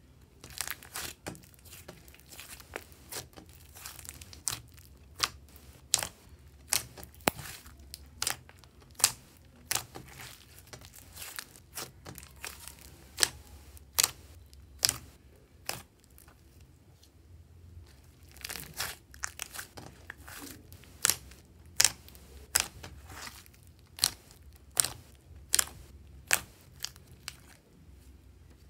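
Hands kneading, pressing and stretching a large batch of glossy slime, mixed from clear slime, old lipstick and clay. It gives a steady run of sharp pops and crackles, one or two loud ones a second with quieter ones between, and a short lull just past the middle.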